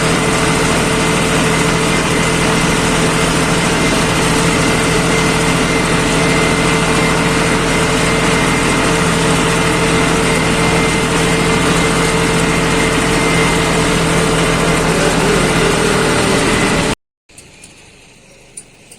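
Heavy diesel engine running steadily at a constant speed, loud and close. It cuts off suddenly about seventeen seconds in, leaving a faint quiet background.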